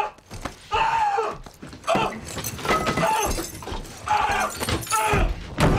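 Two men grunting and yelling with strain as they grapple in a close-quarters fight, mixed with sharp crashes and impacts.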